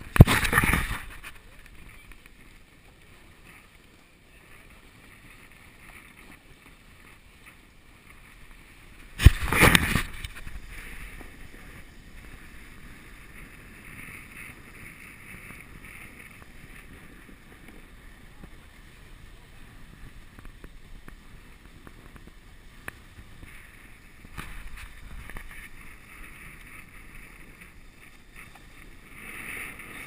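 Steady scraping hiss of snow sliding under the rider on a packed, groomed piste. Two loud rubbing bumps of a gloved hand on the hand-held camera come just after the start and again about nine seconds in.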